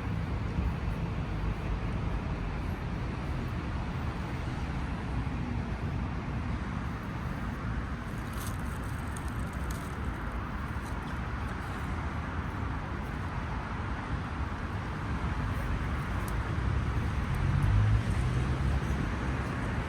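Steady street background with a low traffic rumble, growing a little louder near the end.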